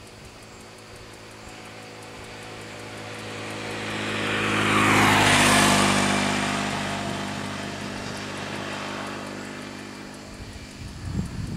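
A motor vehicle passing by: engine and tyre noise build up, peak about five seconds in, then fade away.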